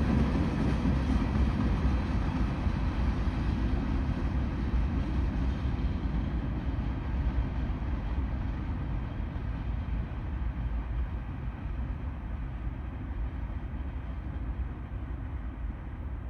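CSX freight train rolling by, a steady low rumble that slowly fades as the train moves away.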